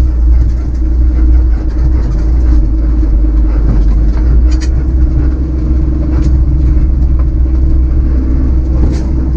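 Grain truck's 454 big-block V8 running low and steady, heard from inside the cab as the truck creeps slowly forward. A few short clicks sound over it.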